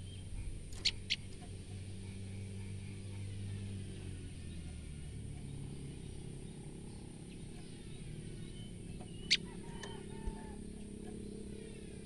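Female common tailorbird giving short, sharp alarm notes, the call it makes when frightened: two in quick succession about a second in, then a louder single note a little after nine seconds and a weaker one soon after, over a steady low rumble.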